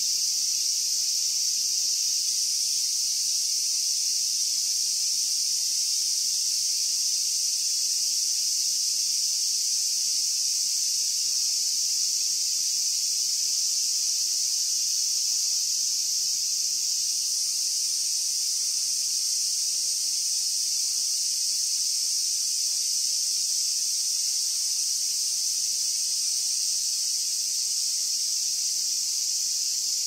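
Cicadas singing in a continuous chorus: a steady, high-pitched hissing buzz with no breaks.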